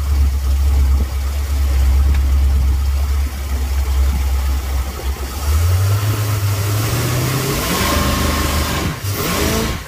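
A jet boat's Ford 460 big-block V8, running on a newly fitted Holley Sniper EFI, idles with a steady low rumble, then revs up about five and a half seconds in. A rush of water from the jet grows over the engine and is loudest near the end.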